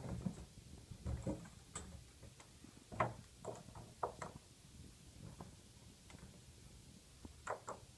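Light clicks and knocks of white PVC pipe pieces being handled and set down on a table, a handful of separate taps spread irregularly, the sharpest about three seconds in.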